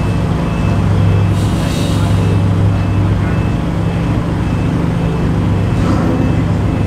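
A car engine idling steadily with a low, even hum.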